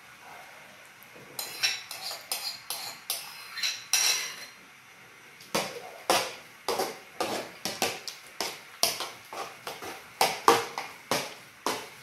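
Metal spoon knocking and scraping against an aluminium pot while cooked rice is mixed, a run of sharp clinks about two a second starting a little over a second in.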